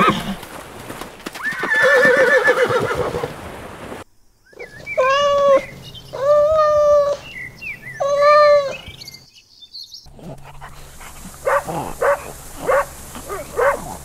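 A horse whinnying with a wavering, falling call. After a break comes a cat meowing three times, then a dog giving a quick run of short barks near the end.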